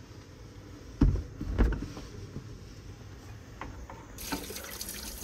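Two dull thumps about a second in, then a few light clicks. Near the end a steady hiss of running tap water starts.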